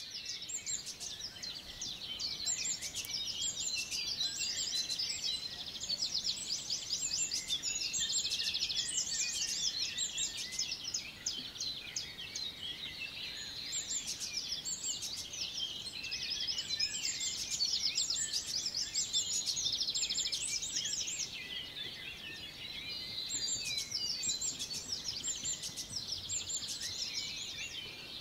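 A chorus of many songbirds singing at once, with overlapping chirps and fast trills that go on without a break.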